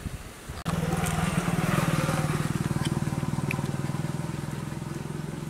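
Motorcycle engine running close by. It cuts in suddenly just under a second in with a fast, even pulse and a low hum, then slowly fades.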